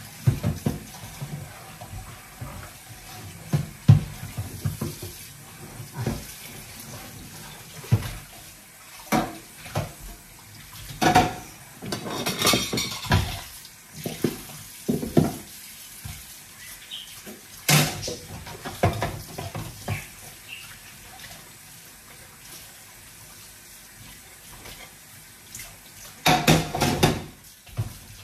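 Dishes and cutlery being washed by hand in a kitchen sink: tap water runs while crockery clinks and clatters again and again, busiest a little before halfway and again near the end.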